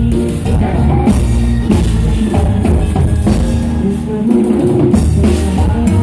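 Live band playing loudly, heard from on stage, with drums and percussion to the fore over bass and guitar.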